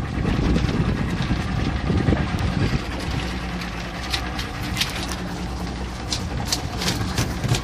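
A boat engine idling steadily under wind buffeting the microphone, the wind heaviest in the first few seconds. In the second half, a scatter of sharp clicks as western rock lobsters are pulled out of a wooden cray pot.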